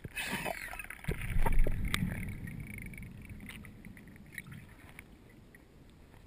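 Muffled underwater noise of water moving over a waterproofed GoPro as a freediver swims down: a low rumble that swells about a second in and then fades, with scattered light clicks.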